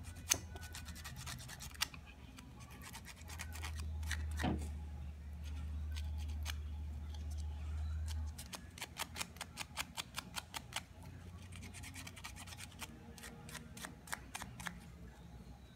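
Small piece of sandpaper scraped back and forth over the burnt electrical contacts of a pressure washer's trigger switch: short dry scratches, coming quickly, about five a second, for a couple of seconds past the middle and more scattered elsewhere. The contacts are being cleaned because the burnt, blackened surfaces no longer make contact. A low steady hum runs underneath for several seconds in the first half.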